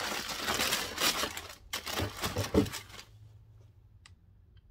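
Tissue paper wrapping in a shoebox crinkling and rustling as it is handled, with a few soft knocks about two seconds in. It stops about three seconds in.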